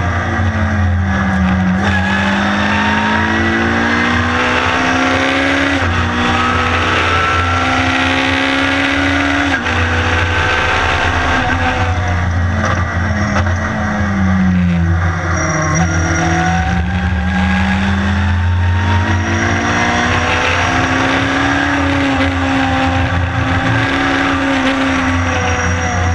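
Honda-engined Lotus race car's engine heard from inside the cabin, revving up through the gears with the pitch dropping sharply at each upshift. The note sweeps down twice as the car brakes and downshifts for corners, then climbs again under acceleration.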